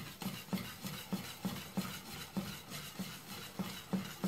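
Wire whisk stirring a thick ube and coconut-milk batter in a stainless steel saucepan, its wires knocking against the pan in a steady rhythm of about three strokes a second.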